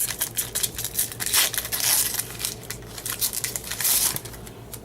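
Baseball card pack's wrapper crinkling and tearing as it is ripped open, in a string of quick crackly rustles that die down near the end.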